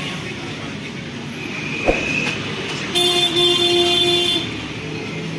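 Steady background traffic noise with a vehicle horn sounding once for about a second and a half, about three seconds in.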